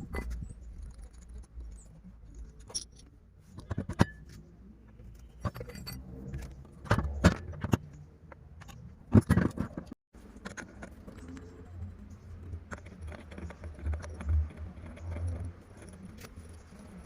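Scattered metallic clinks, clicks and knocks of tools and parts being handled while working on a Stihl 070 chainsaw, the loudest knocks about four, seven and nine seconds in.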